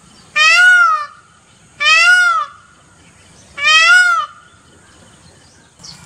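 Male Indian peafowl calling: three loud calls about a second and a half apart, each rising and then falling in pitch.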